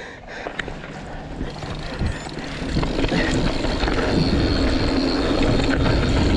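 Wind rushing over the camera's microphone and the rattle of a mountain bike riding a dirt trail, growing steadily louder as it picks up speed, with scattered knocks.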